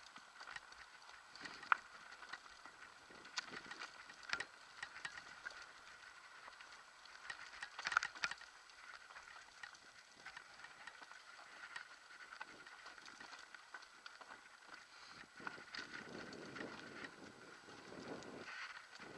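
Mountain bike rattling down a rocky dirt singletrack: irregular knocks and clatter from the chain and frame as the tyres run over loose stones, with a loud burst of knocks about eight seconds in. A low rushing noise builds near the end.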